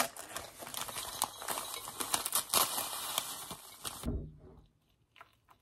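Paper sachet being crinkled and torn open by hand: a dense crackle of many small clicks that stops about four seconds in.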